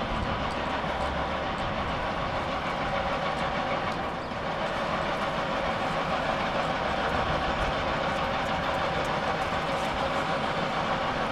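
Steady hum of a light-rail tram over busy city-street noise of traffic and crowd, with a brief lull about four seconds in.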